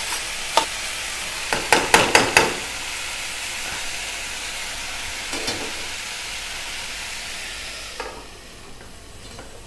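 Sprouted moth beans and potato pieces sizzling in oil in a steel pot while a steel spoon stirs and scrapes through them, with a few sharp clicks of the spoon against the pot in the first couple of seconds. About eight seconds in, a steel plate holding water is set over the pot as a steaming lid, and the sizzle drops to a quieter hiss.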